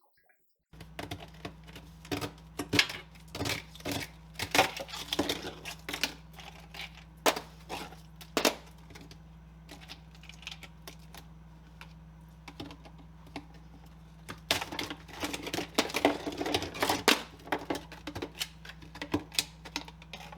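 Chunks of ice in the bottom of a freezer being chipped loose and knocked about: irregular clusters of sharp knocks and clicks, over a steady low hum.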